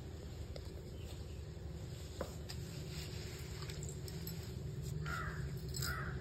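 A crow cawing twice near the end, over a steady low background hum.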